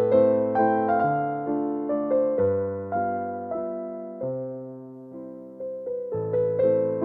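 Background music: slow, gentle electric piano playing chords over a bass line, with a softer pause about two-thirds of the way through.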